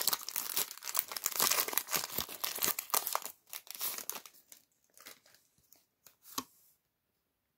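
Foil-wrapped Pokémon TCG booster pack being torn open, its wrapper crinkling densely for about three and a half seconds, then a few scattered crackles and light clicks before it goes quiet near the end.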